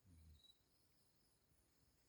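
Near silence: a faint, steady high-pitched drone, with a soft low thump right at the start.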